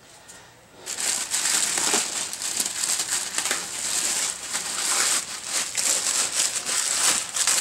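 Packing material crinkling and rustling as a part is unwrapped by hand, starting about a second in.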